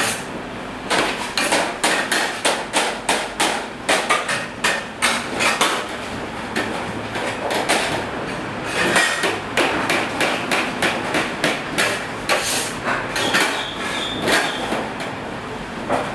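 Cleaver chopping pork into mince on a wooden chopping block, in rapid, even strokes about three a second with a few short pauses.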